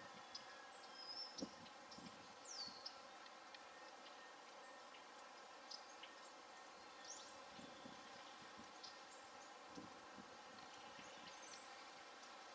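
Near-silent outdoor ambience: a faint steady hum with scattered short, high chirps from small birds, one of them a quick falling whistle about two and a half seconds in.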